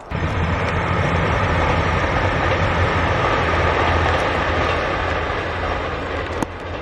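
Kiha 261 series diesel limited express train passing close by: a steady low drone of its diesel engines under the rumble of wheels on rail, with one sharp click near the end.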